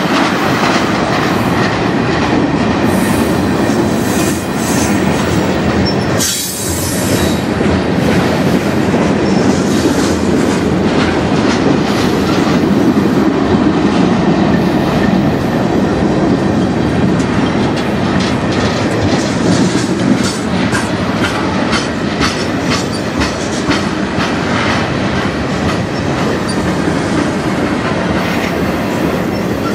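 Freight train tank cars rolling steadily past at close range, their steel wheels clacking over the rail joints in a continuous rumble. A brief high-pitched hiss stands out about six seconds in.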